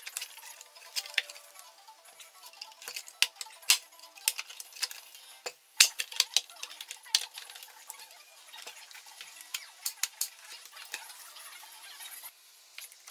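The white plastic housing of an IKEA SY sewing machine clicking and knocking as it is handled and worked loose from the machine, with small clinks of parts and tools; the clicks come irregularly, the loudest about six seconds in.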